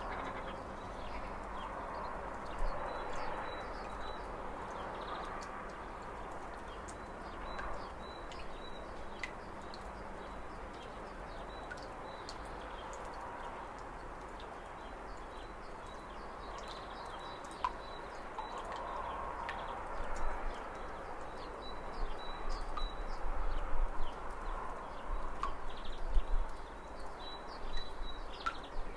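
Small birds chirping in short, repeated calls over a steady hiss of outdoor background noise beside a lake. Uneven low rumbles and knocks grow louder in the last third.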